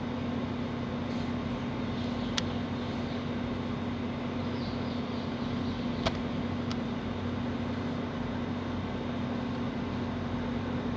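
A steady low hum with background noise, broken by two short sharp clicks, one about two and a half seconds in and one about six seconds in.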